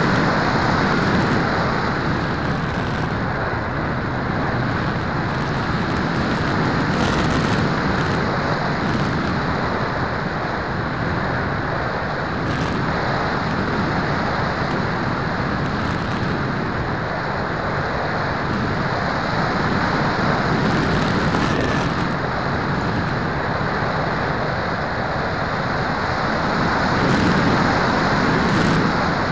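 Steady rushing airflow noise on the onboard camera of a radio-controlled model plane in flight, swelling slightly near the end.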